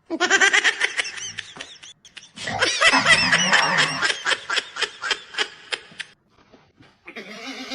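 A person laughing hard: a first burst, then a long run of rapid laugh pulses, with a shorter laugh-like sound near the end.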